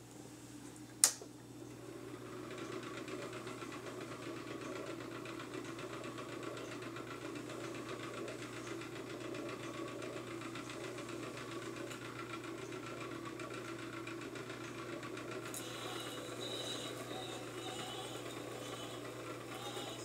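Illustravox Standard Jr. tube-amp record player: a sharp click about a second in as the stylus is set on the spinning record, then record surface noise from the lead-in groove over a steady amplifier hum. Faint music begins near the end.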